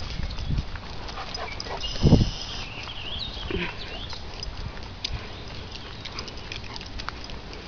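A dog making short vocal sounds, with a low thump about two seconds in and a short high wavering sound just after it, over scattered light clicks.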